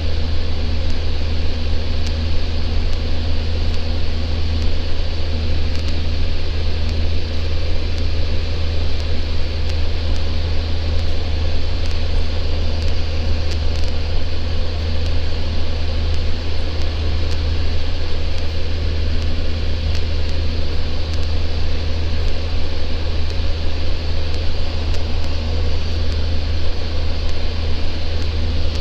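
Cabin noise of a Socata TB10 Tobago in flight: its four-cylinder Lycoming engine and propeller droning steadily. A deep, constant hum lies under an even hiss.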